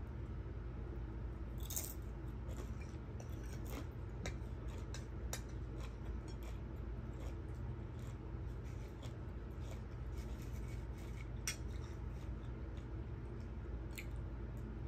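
Close-up eating sounds: chewing with irregular small crunches and mouth clicks, over a steady low hum.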